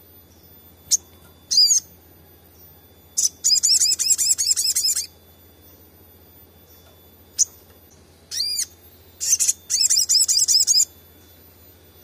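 Olive-backed sunbird singing: two bursts of rapid, high-pitched repeated notes, each about a second and a half long, each led by a sharp single note and a short phrase.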